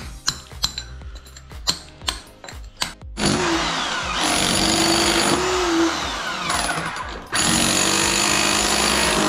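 A series of sharp hammer blows on a chisel chipping concrete, then a Hilti rotary hammer starts up about three seconds in and chisels the concrete floor continuously, stopping briefly around seven seconds before starting again.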